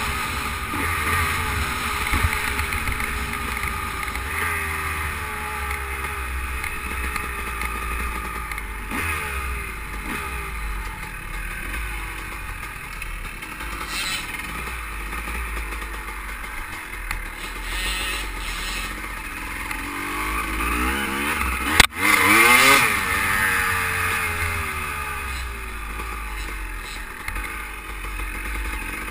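A 250 cc Honda motocross bike's engine is ridden hard, revving up and down as it accelerates and shifts, with wind rumbling on a helmet-mounted microphone. About two-thirds of the way in comes a sharp knock, followed by a hard rev.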